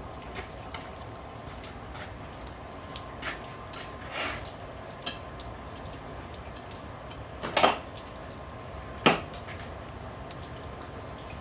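Scattered metal clinks and knocks of steel blacksmith's tongs and a railroad spike being pushed into the coals of a forge fire, the loudest two sharp knocks about two-thirds of the way through, over a steady faint hum.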